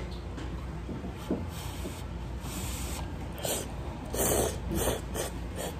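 A person slurping noodles from a bowl in several short, hissing rushes, the loudest a little over four seconds in.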